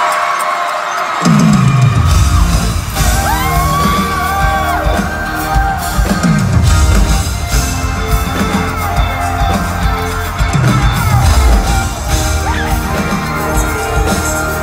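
Loud live pop concert music in an arena: a deep bass comes in about a second in, with a falling bass drop every four to five seconds, while the crowd screams over it.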